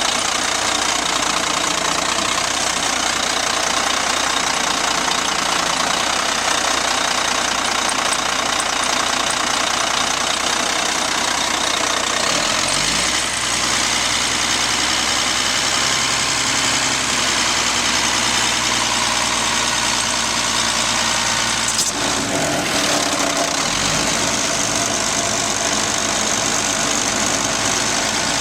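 Cat C-10 diesel engine of a Kenworth T800 concrete mixer truck running at idle, a steady, loud diesel clatter, with the engine note shifting briefly about 13 seconds in and again a little before the end.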